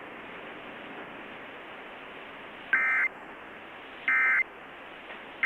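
Emergency Alert System SAME end-of-message data bursts: two short, harsh two-tone digital squawks about a second apart, with a third starting right at the end, over steady radio static. They signal the end of the flash flood warning broadcast.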